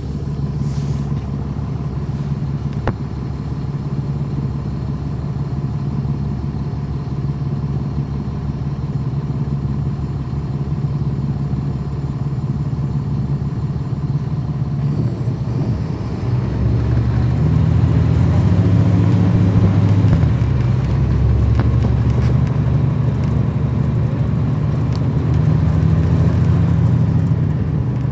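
Caterpillar C13 ACERT diesel engine of a 2009 NABI 40-foot suburban transit bus, heard on board: a steady low drone, then louder with a changing pitch from about halfway through as it pulls harder, with a dip in pitch about two-thirds in.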